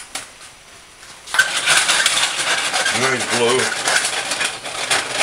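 Cream sauce with shrimp sizzling and bubbling in a frying pan, a crackling hiss that starts suddenly about a second in. A short two-note hum from a person about three seconds in.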